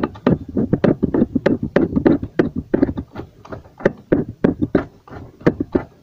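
Rapid, uneven series of clicks and knocks, several a second, from hands and tools working on a loose engine-mount bolt in the engine bay.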